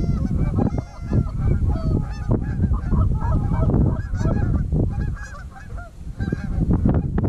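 Flock of Canada geese honking, many short overlapping calls one after another, over a low wind rumble on the microphone.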